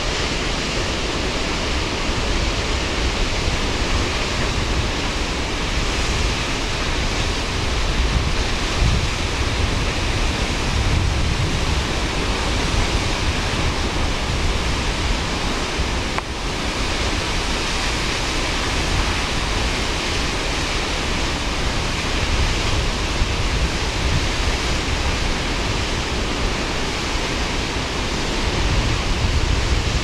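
Tall free-falling waterfall: water plunging from a cliff edge into its pool, a steady rushing noise that keeps an even level throughout.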